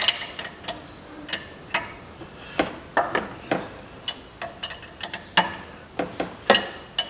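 Ratchet wrench clicking in short strokes as it turns the forcing screw of a harmonic balancer puller, drawing the balancer off the crankshaft. The clicks come singly and in small groups, irregularly spaced.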